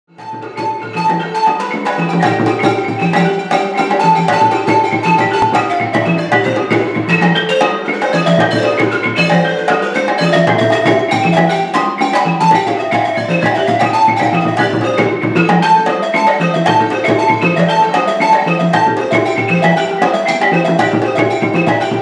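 West African Mande percussion ensemble playing: a balafon (wooden xylophone) carries a fast, repeating melody over djembe and dundun drums, with a steady low drum pulse beneath. The music fades in at the start.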